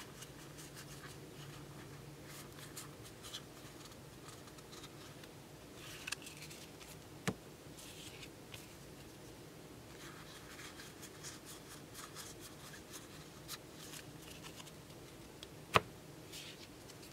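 Trading cards handled and leafed through by hand: faint rustling and light card-edge ticks and scrapes, with two sharper taps, the louder one near the end.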